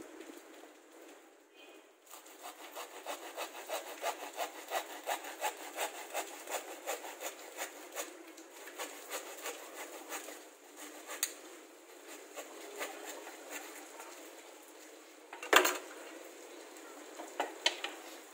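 Thin wooden strip being cut by hand with a short-bladed tool in quick scraping strokes, about two a second, growing lighter after about ten seconds. A sharp wooden knock near the end, with a couple of smaller clicks after it.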